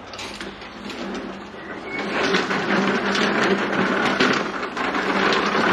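Walk-behind lawn mower pushed over stone patio tiles, its wheels and housing rattling; the rattle grows louder about two seconds in.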